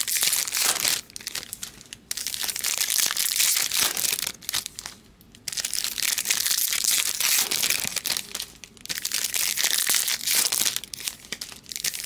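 Foil trading-card pack wrappers crinkling and crumpling as packs are handled and opened, in several spells with short pauses between.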